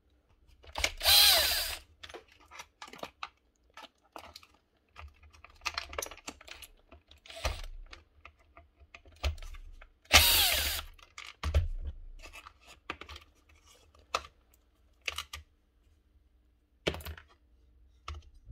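A cordless drill-driver runs briefly on the terminal screws of a power-tool switch, loudest in two bursts of about a second each, one near the start and one about halfway, with a motor whine that rises and falls. Between the bursts come small clicks and rustles of wiring and plastic being handled.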